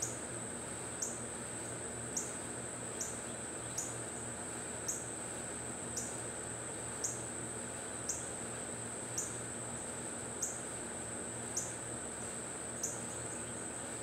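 Crickets or similar insects: a steady high-pitched trill, with a short chirp that falls slightly in pitch about once a second.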